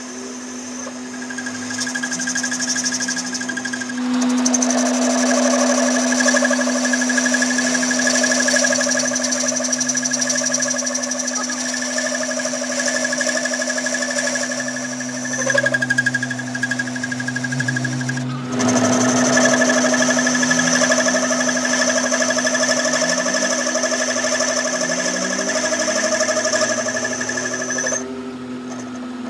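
An electric workshop machine running steadily with a constant hum, as the crankshaft is worked on. It grows louder about four seconds in, breaks off briefly around eighteen seconds, then picks up again and drops near the end.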